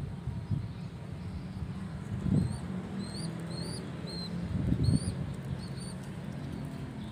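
Young pigeon (squab) begging with thin, high, rising peeps, about a dozen of them in the middle few seconds, over a low rumble.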